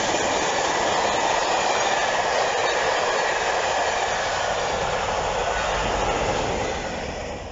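Passenger coaches of a steam-hauled train running past at speed: a steady, loud rush of wheels on rail. Near the end the noise falls away as the rear of the train, a Class 47 diesel locomotive, goes by and recedes.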